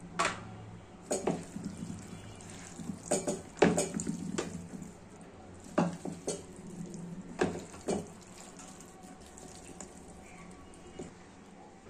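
A bare hand squeezing and mixing raw small fish with sliced onion, tomato, green chilli and spices in a pan: irregular wet squishes and scrapes, busiest in the first eight seconds and sparser after.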